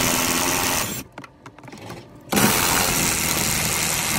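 Cordless impact wrench hammering on the 14 mm nuts of a rear strut's top mount, in two runs: one stopping about a second in, a second starting a little past two seconds and running on, with a few small clicks between.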